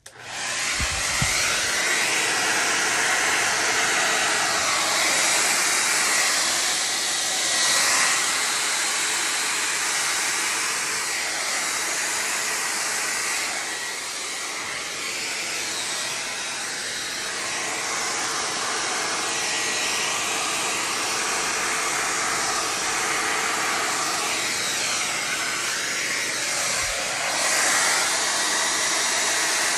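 A hair dryer fitted with a diffuser switches on suddenly and runs steadily, blowing air across wet acrylic paint on a canvas. Its level rises and falls slightly as it runs.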